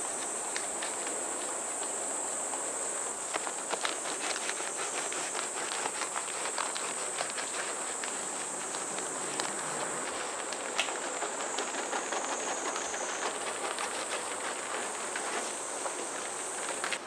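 Steady high-pitched insect chorus, with scattered light clicks and rustles throughout.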